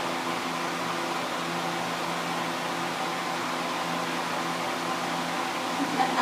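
Steady mechanical hum of a running motor or fan, with several steady tones over a soft hiss. A few short knocks come near the end.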